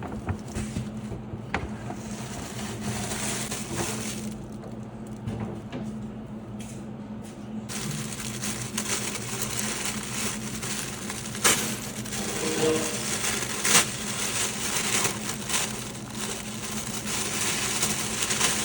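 Packaging being handled and opened: paper or plastic crinkling and rustling with many small sharp clicks and crackles, over a steady low hum.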